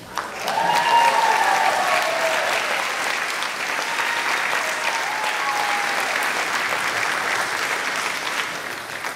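Theatre audience applauding loudly at the end of a musical number, with a few voices cheering, starting right as the song stops and tailing off near the end.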